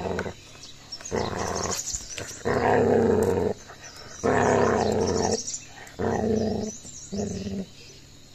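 Tibetan mastiff puppy growling over a chew at a bigger dog beside it: a string of about five deep growls, each up to about a second long, with short breaks between, the sign of a puppy guarding its food.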